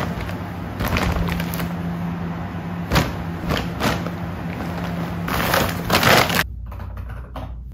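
Woven plastic shopping bags rustling and crinkling in repeated sharp bursts as folded bath mats are handled and packed into them, over a steady low hum. About six and a half seconds in the sound cuts abruptly to a quieter room with a few faint taps.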